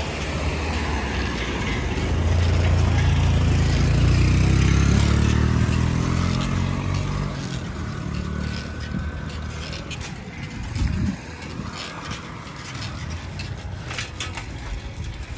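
A motor vehicle's engine passing close by, growing louder to a peak about four seconds in, its pitch sliding as it goes past, then fading away by about eight seconds in.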